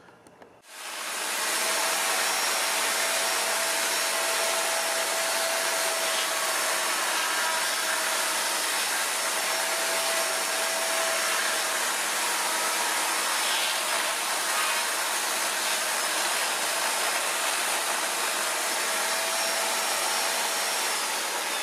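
Electric chainsaw motor spinning up about a second in, then running at a steady pitch with a faint whine, not yet cutting.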